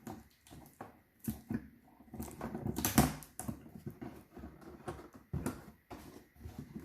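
Plastic packaging being handled and pulled at: irregular crinkling, rustling and small clicks, loudest about three seconds in.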